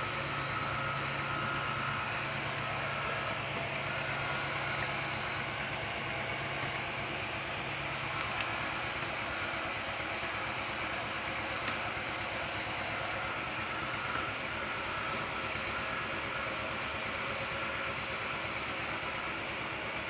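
Steady rushing background noise, with a couple of faint clicks partway through.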